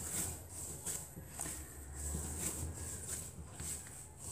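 Hands kneading whole-wheat bread dough on a countertop: soft, rhythmic pushing and pressing strokes, about two a second, over a low steady hum.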